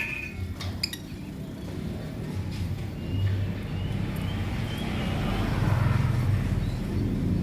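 A low rumble that grows steadily louder, with a few light clicks in the first second and faint bird chirps about three seconds in.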